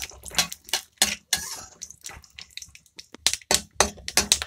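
Metal spatula scraping and tapping against a metal kadai as peanuts are stirred in hot oil, the nuts clicking against the pan. Irregular clicks and scrapes, sparser in the middle and busier again near the end.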